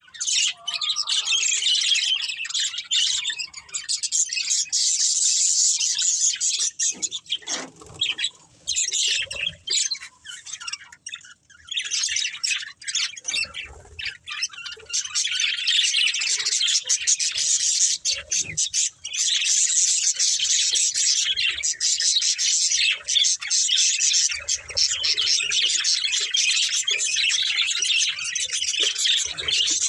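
Budgerigars chirping and chattering almost without pause: a dense, high twittering with short lulls.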